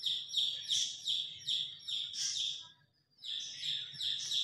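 A bird chirping over and over in short, high, downward-sliding chirps, about two to three a second, with a brief silent break about three seconds in.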